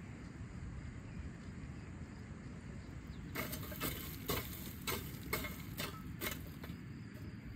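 Steel shovel scraping and crunching through burnt-down charcoal in a brick fire pit, spreading the hot coals: a run of about eight sharp strokes, roughly two a second, starting a little under halfway through. Before that, only a steady low background rumble.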